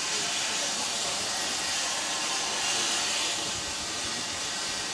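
Steam locomotive hissing off steam, a steady, even hiss.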